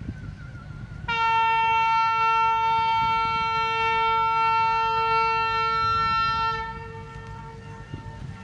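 A horn sounding one long, steady blast of about five seconds on a single high note. It starts abruptly about a second in and fades away near the end, over a low background rumble of wind.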